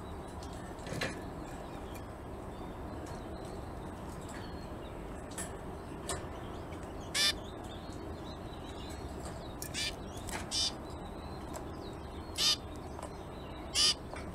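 Zebra finches giving short, separate calls, about eight in all, the loudest ones spread through the second half, over a steady low background noise.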